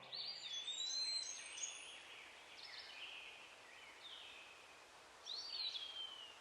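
Faint birdsong: a few thin whistled notes, one near the start and another near the end that rises briefly and then slides down in pitch, over a quiet outdoor hiss.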